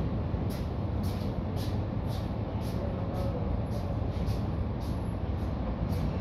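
Steady low rumble of building-site noise, with a soft hissing tick repeating about twice a second.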